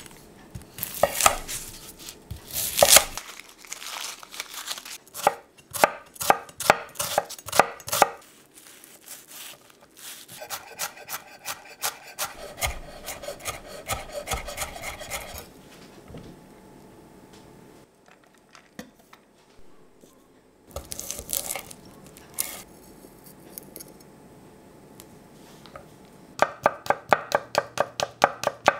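Chef's knife chopping on a wooden cutting board: separate cuts through a shallot at first, then a run of fast, even chops mincing it. After a quieter stretch, another quick series of knife strikes near the end as garlic cloves are cut.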